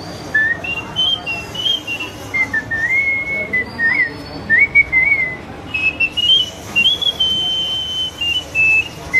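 A man whistling a melody through pursed lips, imitating a bansuri (bamboo flute) tune. The whistled line wanders up and down in pitch, with a short break a little past the middle.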